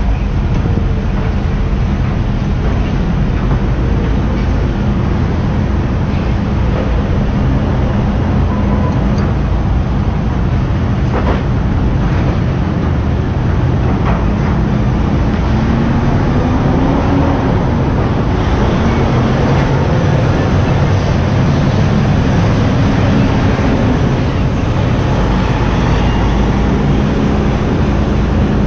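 Heavy diesel engines running in a steady low drone, with a couple of faint metal knocks partway through. Near the end a tractor-trailer rolls past close by.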